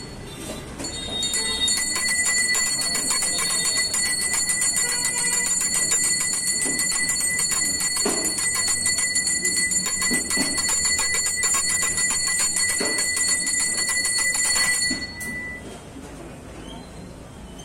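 Brass temple hand bell (ghanta) rung rapidly and without pause while the aarti lamp is waved, a bright steady ringing. It starts about a second and a half in and stops about fifteen seconds in.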